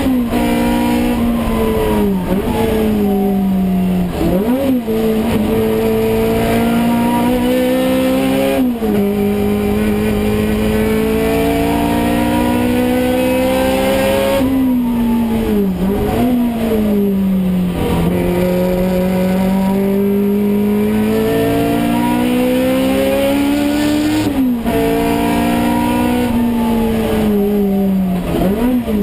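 Toyota AE86 Corolla race car's four-cylinder engine, heard from inside the stripped cabin under racing load. Its pitch climbs steadily through each gear, and is broken several times by quick gear changes with sharp throttle blips as the car brakes and turns.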